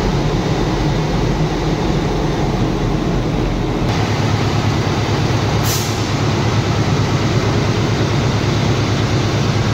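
Diesel locomotive engine running loudly and steadily during a hot-engine test in the loco shed. The sound grows brighter about four seconds in, and a brief hiss of air comes near six seconds.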